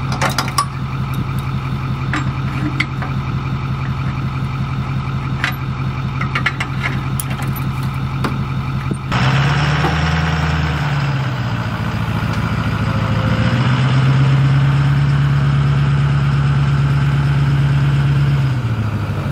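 Pickup truck engine idling, with scattered clicks and clanks from the trailer hitch. About nine seconds in, the engine revs up and pulls the fish-house trailer forward. It runs steadily under load, then eases off near the end.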